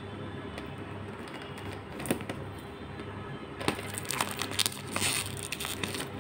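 Plastic shrink-wrap on a cardboard box crinkling and crackling as fingers pick at it. A couple of sharp crackles come around two seconds in, and a busier stretch of crinkling comes from about four seconds in.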